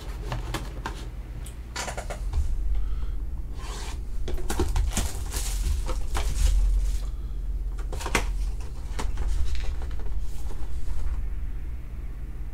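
A white cardboard trading-card box being handled and opened: irregular rustling, scraping and sliding of cardboard, with scattered sharp taps and clicks. A steady low hum runs underneath.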